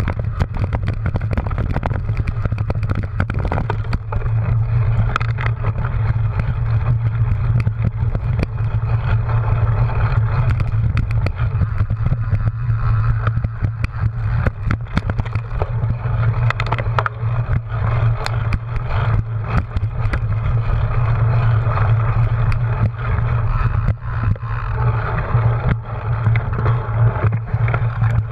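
Cyclocross bike ridden over grass and dirt, heard from a camera on its handlebars: a steady rush of wind and tyre noise, with frequent clicks and rattles as the bike goes over bumps.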